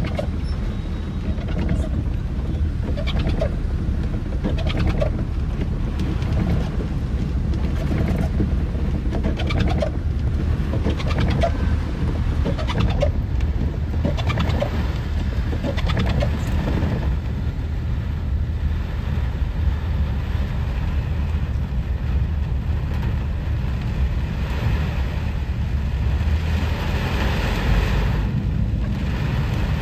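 Inside a car driving through heavy rain and standing water: a steady low rumble of the car and its tyres in the water. Over it, the windscreen wipers squeak in a repeating rhythm, about once a second, through the first half; the owner blames worn wiper rubber.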